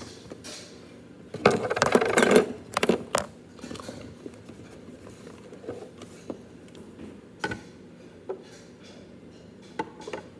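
Handling noise from a phone being carried close to the body: hair and clothing rubbing over the microphone, with a loud rustle about two seconds in and a few light knocks.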